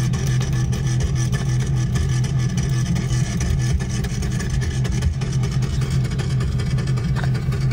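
Ford pickup's V8 engine running with a loud, steady note, held at constant revs.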